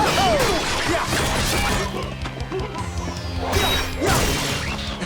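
Action-cartoon fight music with sound-effect hits and swooshes: several sharp strikes, the loudest just at the start and again about four seconds in.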